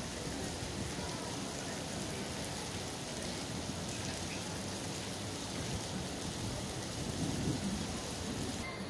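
Wind buffeting the microphone: a steady rushing rumble with a stronger gust about seven seconds in.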